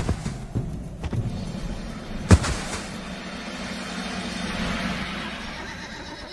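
Battle sound effects: a few hoofbeat-like clicks trailing off in the first second, one sharp strike a little over two seconds in, then a steady low rumble that swells slightly and fades.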